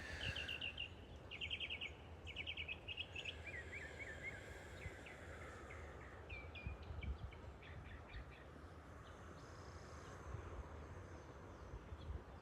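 Faint birdsong: quick pulsed trills in the first three seconds, then scattered short chirps, over a low steady rumble of outdoor background noise.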